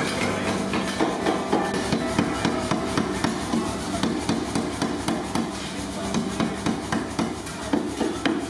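Power hammer pounding a glowing bar of 50 mm solid-section iron between its flat dies: a rapid, even run of heavy blows drawing the bar down.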